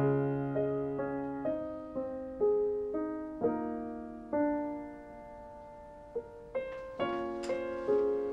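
Solo piano music playing a slow, gentle melody: single notes and chords struck every half second to a second, each ringing and fading away.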